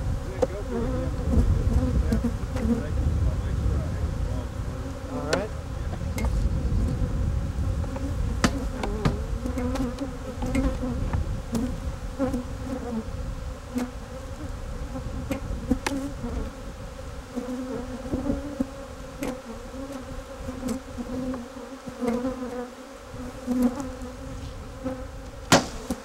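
Dense, steady buzzing of a mass of honeybees shaken off brood frames into a queen-excluder tray. It is broken by a dozen or so sharp knocks, the loudest near the end.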